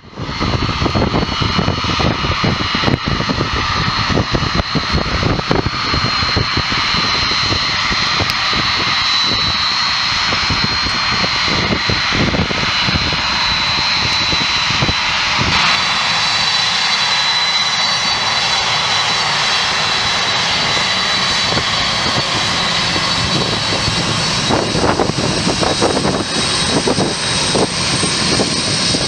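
Boeing 747-400 freighter's four turbofan engines running steadily at low power as the jet moves along the runway to line up for takeoff, a dense jet rush with a high, steady fan whine over it.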